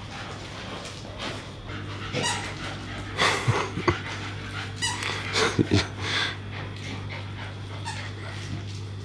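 Two Staffordshire bull terriers, an adult and a puppy, tussling over a plush toy. They make short dog vocal noises and scuffle in two bouts, about three and five seconds in.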